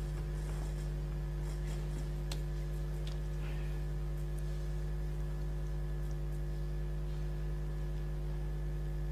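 Steady low electrical hum, with a few faint clicks about two and three seconds in.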